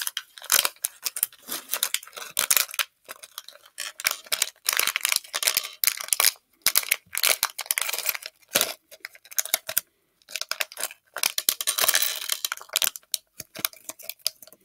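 A clear plastic bag of Lego pieces being torn open and handled, crinkling in irregular bursts with short pauses.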